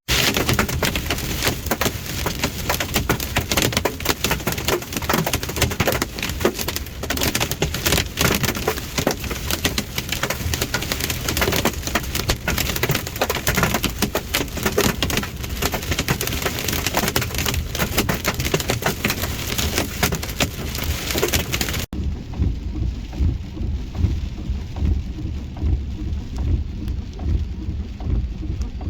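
Heavy rain and hail pounding on a vehicle, a dense loud hiss full of sharp hits. Near the end it switches abruptly to a low rumble, with the hiss much reduced.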